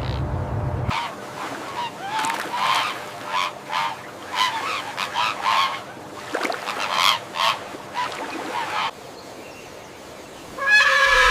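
A bird giving a series of short, repeated calls, about a dozen in quick succession, then a louder call near the end. A low rumble cuts off about a second in.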